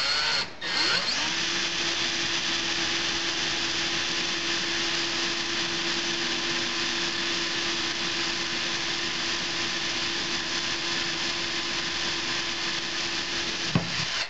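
Cordless drill drilling a small pilot hole through a tube: two short spin-ups at the start, then one long steady run that winds down near the end.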